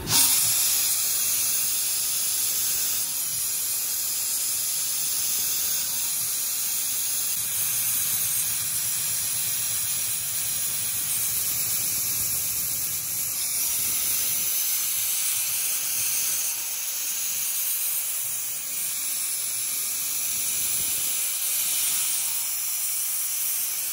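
Cutting-oil coolant spraying from the lathe's flexible nozzle onto a spinning stainless steel rifle barrel while the tool turns the tenon: a steady, loud hiss that cuts in abruptly as the oil is switched on.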